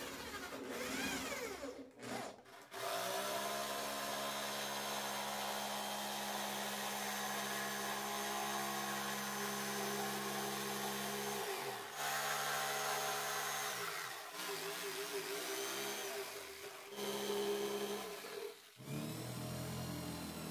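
Power tools working wood: a cordless drill spinning up as it drives screws, and a jigsaw running steadily for about eight seconds as it cuts a pine board, winding down near the middle, followed by several shorter bursts of drilling.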